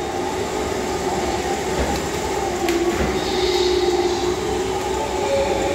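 Fairground ghost-train car rolling along its track, a steady rattling rumble from the wheels and rails.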